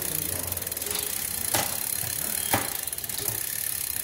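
Rear drivetrain of a Look 795 Blade Disc road bike spinning on a stand: the chain running over the cassette through the Shimano 105 Di2 rear derailleur, with steady ticking. Two sharp clicks come about one and a half and two and a half seconds in.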